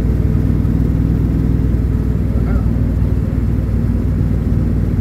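Car engine running steadily under way, with road rumble, heard from inside the car while driving.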